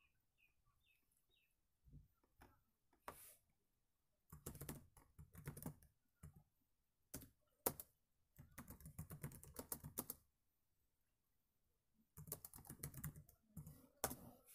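Typing on a computer keyboard: several bursts of quick keystrokes with short pauses between them.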